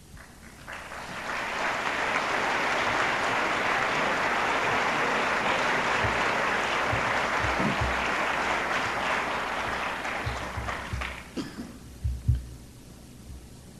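Audience applauding. It swells over the first two seconds, holds steady, and dies away about eleven seconds in, with a few low thumps in its second half.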